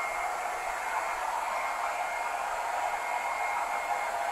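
Hand-held hair dryer blowing steadily, with a thin high whine from its motor, used to blow loose hair clippings off a freshly clipped head.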